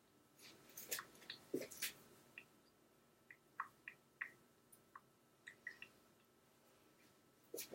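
Faint rustling of a cotton chambray shirt being put on, with scattered small clicks and brief swishes of the fabric.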